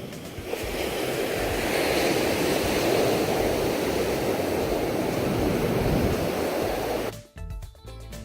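Pacific Ocean surf: a continuous rushing of waves breaking on the shore that stops abruptly about seven seconds in. Music takes over at that point.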